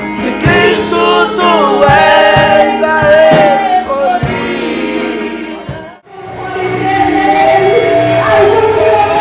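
Gospel song with group singing over drums. The music cuts out abruptly about six seconds in, then singing resumes over a softer backing without the drum hits.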